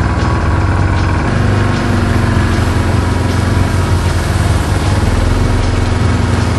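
A small engine running steadily at an even speed, a loud, unchanging drone.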